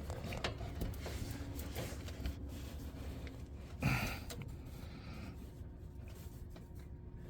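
Quiet low background hum with faint handling clicks, and one short breathy vocal sound, like a grunt of effort, about four seconds in.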